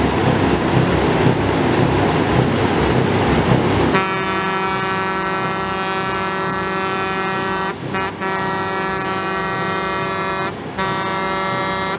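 Truck air horn sounding one long, steady multi-tone chord that starts suddenly about four seconds in and breaks off twice for a split second near the end. Before it, a rumbling din with a low pulsing beat.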